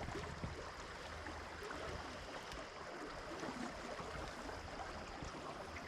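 Steady wash of moving river water, with a few faint light knocks.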